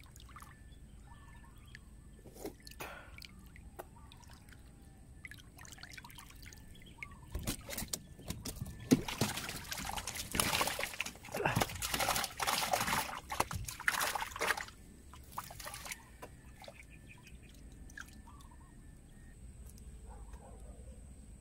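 Water splashing and sloshing close by as a swimmer moves through calm river water. A run of louder, choppy splashing starts about seven seconds in and lasts around eight seconds, with quieter small splashes and lapping before and after.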